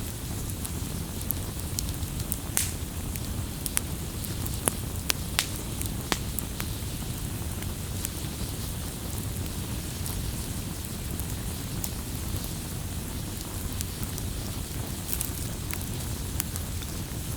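Campfire burning: a steady low rumble of flames with sharp, irregular wood crackles and pops, more frequent in the first several seconds.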